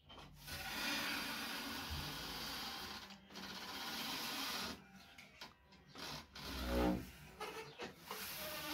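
A wooden interior door being pushed open, with a long rasping rub that lasts about four seconds and breaks off once, then scattered knocks and rustling.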